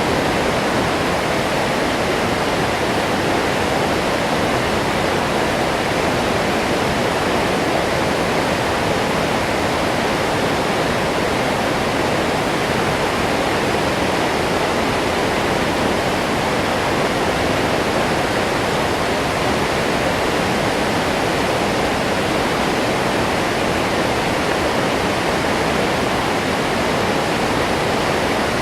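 Medium waterfall pouring steadily: a constant, even rush of falling water.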